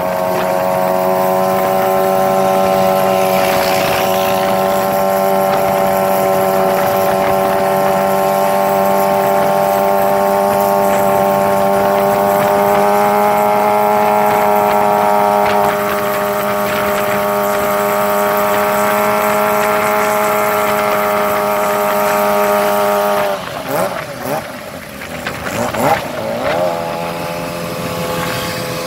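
Sport motorcycle engines riding at a steady cruise: one engine holds a steady drone, its pitch creeping up slightly, for over twenty seconds. About three-quarters of the way through, that note drops away and the sound turns quieter and uneven, the engine pitch rising and falling.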